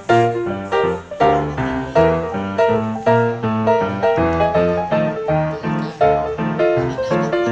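Background piano music: a steady run of notes over low chords, about two to three notes a second.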